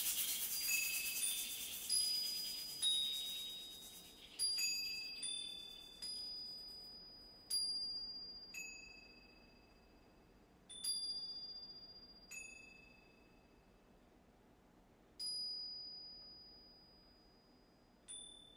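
Japanese wind-bell (furin) tinkling played on percussion instruments: single bright, high strikes that ring and fade, several close together at first, then spaced out every second or few seconds as the piece dies away.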